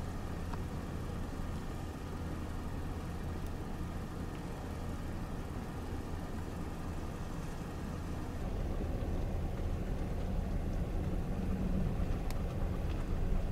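Car running, a steady low rumble that grows a little louder about eight seconds in.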